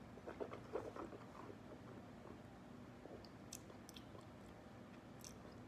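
A person sipping wine from a glass and tasting it: soft, wet sipping and mouth sounds in the first second and a half, then a few faint lip-smacking clicks while the wine is held and tasted in the mouth.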